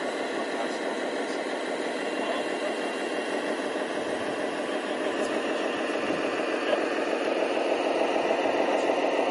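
Radio-controlled scale MAN TGA dump truck running, a steady engine-like drone that grows a little louder toward the end.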